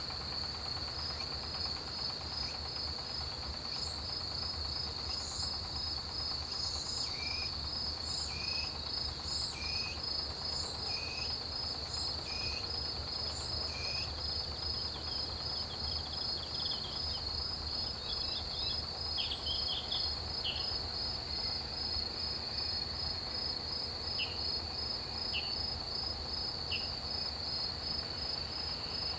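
Autumn chorus of crickets and other grass insects: a steady, high continuous trill. Short rising chirps repeat about twice a second over it for several seconds midway, and a few more come later.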